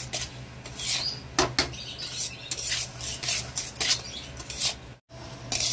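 Spatula scraping and stirring semolina (sooji) as it roasts in ghee in a metal kadhai, with irregular scrapes about every half second to a second. The sound cuts out briefly about five seconds in.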